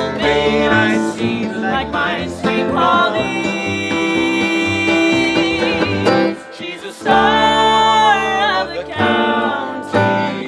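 Celtic folk band of acoustic guitar, fiddle and double bass playing with singing, with long held notes and a brief drop about two-thirds through before a full held chord.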